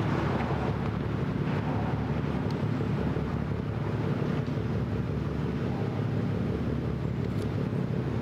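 Steady low engine rumble.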